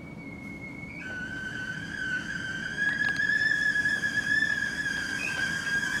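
Background music: a thin, whistle-like sustained tone that steps down in pitch about a second in and then holds with a slight waver, slowly getting louder.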